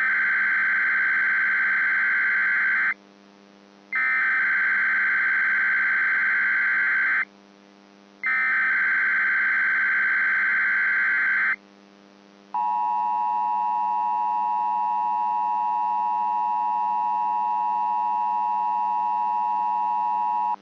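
Emergency Alert System SAME header: three bursts of digital data screech, each about three seconds long with about a second's gap between them. Then comes the EAS two-tone attention signal, a steady two-pitch tone held for about eight seconds, over a faint steady hum. Here the sequence opens a required weekly test.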